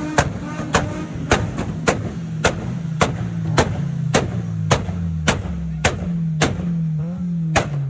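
Hip-hop beat: a sharp hit about every half second over a deep bass line that steps between notes and slides down in pitch at the end.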